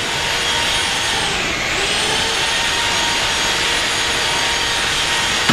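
Rotary hammer drill (perforator) running continuously, a loud steady machine noise whose motor pitch dips briefly and recovers about a second and a half in, as if the bit is loaded.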